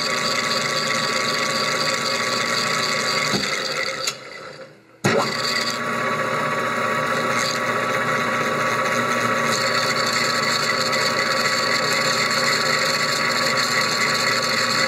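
A lathe spinning a pair of 3D-printed plastic bevel gears, the small gear riding on a bare drill bit, makes a steady whirring, rattling mesh noise. It cuts out about four seconds in and starts again about a second later.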